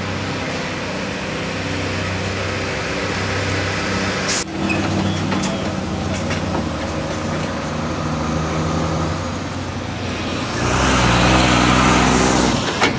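Heavy lorries' diesel engines running as they pull slowly past, with a sharp click about four seconds in. Near the end one lorry passes close and its engine grows louder and fuller.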